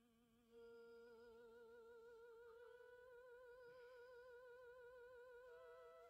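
Faint eerie background music: a single melodic line with a heavy, wavering vibrato holding long notes, theremin-like. A new note comes in about half a second in and a higher note near the end.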